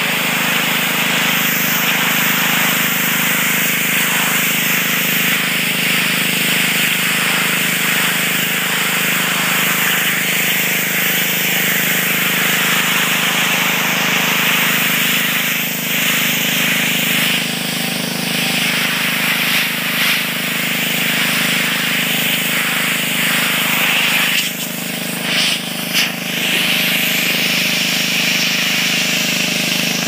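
Pressure washer running with a steady hum while its high-pressure jet hisses onto a seatbelt strap and the concrete beneath it, blasting black mould out of the webbing. The spray cuts out briefly a couple of times near the end.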